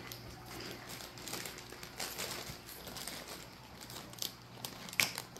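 A foil-lined Funyuns chip bag crinkling quietly as it is handled and pulled open, with a couple of sharper crackles near the end.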